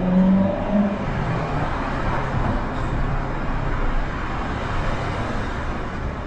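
Street traffic: a vehicle engine accelerating with rising pitch that fades out about a second in, then steady traffic noise.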